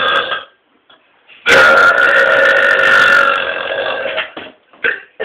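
A man burping: the end of one burp right at the start, then a long, loud burp of about two and a half seconds beginning about a second and a half in, followed by a couple of short sounds near the end.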